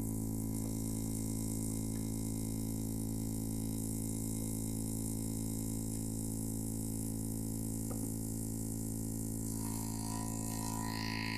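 Steady low buzzing hum with many overtones coming from an Opel Astra H's loudspeakers through its CD30 MP3 head unit. It is an unwanted fault noise in the car's audio system. About ten seconds in, some higher tones join it.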